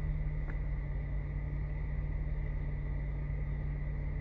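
Steady low drone of a car's running engine heard inside the cabin, with a faint steady high whine over it.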